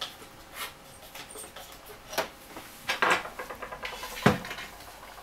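Hands handling a plastic Yongnuo YN160 LED video light and its accessories on a tabletop: scattered clicks and knocks, a small cluster about three seconds in and the loudest knock about four seconds in.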